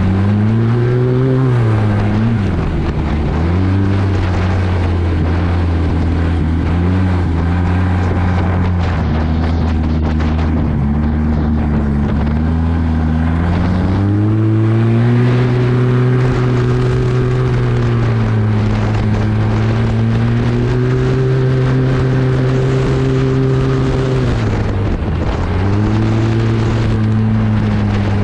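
Arctic Cat 1100 Turbo snowmobile's turbocharged three-cylinder four-stroke engine running hard along a trail, heard from the rider's seat. Its pitch rises and falls with the throttle: it climbs near the start and dips a few seconds in, then holds lower. It climbs again about halfway and holds high, then dips briefly near the end before picking back up.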